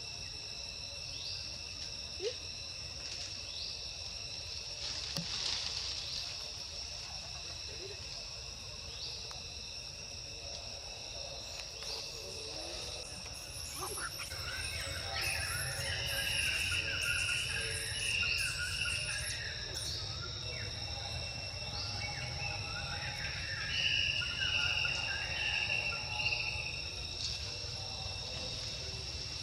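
Steady, high-pitched insect chirring with a faint tick repeating about once a second. Two bouts of louder chirping calls break in, one about halfway through and another later on.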